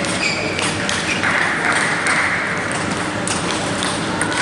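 Table tennis ball clicking off the bats and the table in a rally, a series of sharp, irregular clicks that ring briefly in a large hall.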